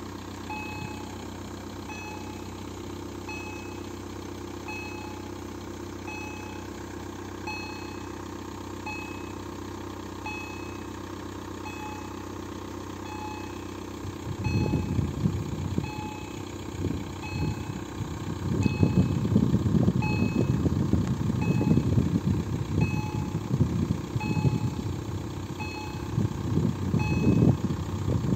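Level-crossing warning sound from EHL-S10 electronic loudspeakers: a Kombud-type electronic ding repeating about once a second, over the steady hum of idling cars. About halfway through, a loud, uneven low rumble comes in and covers the low end.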